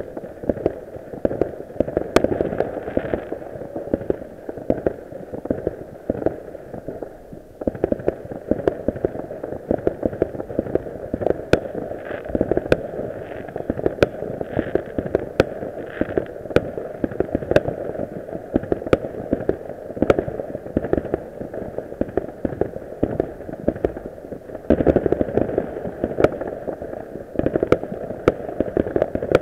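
New Year fireworks going off from many directions at once: a dense, continuous barrage of pops, crackles and bangs, with sharper reports scattered throughout and a short lull just before eight seconds in.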